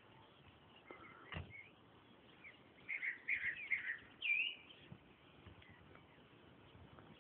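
Birds chirping: a quick run of short chirps about three seconds in, then a louder sweeping call just after four seconds, over a faint steady hiss. A single soft knock sounds about a second and a half in.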